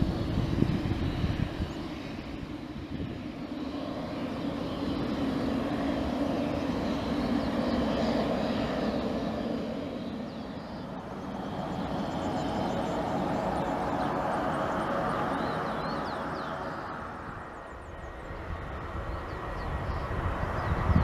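Pilatus PC-12's single PT6A turboprop engine and propeller running at takeoff power on the takeoff roll, a steady drone that swells and fades twice. Short high chirps sound over it in the second half.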